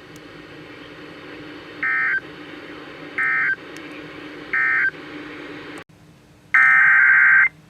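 Emergency Alert System SAME digital data bursts over weather-radio hiss: three short warbling bursts about 1.4 s apart, the end-of-message code closing the warning. After a short dropout comes one longer burst, the header code that opens the next alert.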